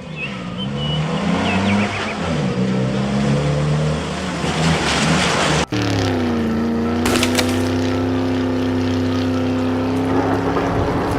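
Cartoon vehicle engine sound effects revving up and down. A sudden cut comes a little past halfway, after which an engine's pitch falls and settles into a steady run.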